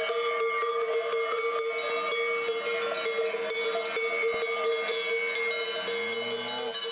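Many cowbells on a herd of cows clanging continuously as the animals walk, layered ringing tones with frequent strikes. A short low tone sounds underneath near the end.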